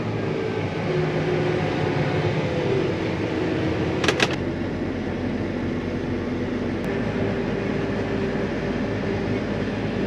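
Tractor engine running steadily, heard from inside the cab with a steady fan-like rush, a few faint hum tones drifting slightly in pitch. A short sharp click about four seconds in.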